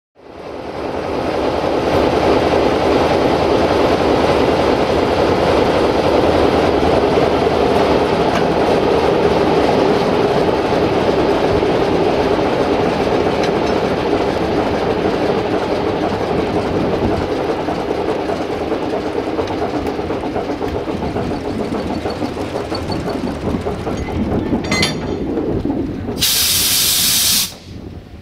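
LDE1250 diesel-electric locomotive's engine running steadily, then easing off as it is shut down. A sharp clank a few seconds before the end, then a loud burst of air hiss lasting about a second, after which the engine sound drops away.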